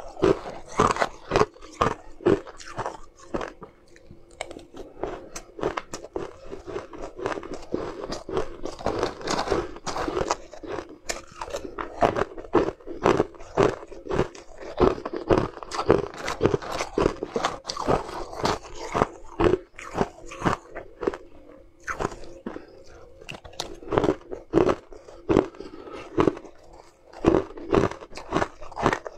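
Ice being bitten and chewed, a rapid, continuous crunching and crackling of breaking ice.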